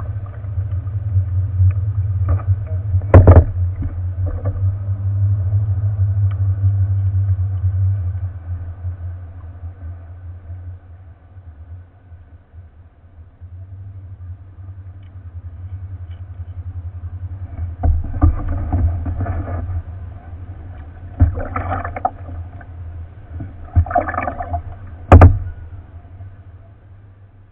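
Kayak paddling: paddle strokes splashing in the water over a steady low rumble, with two sharp knocks, one a few seconds in and one near the end.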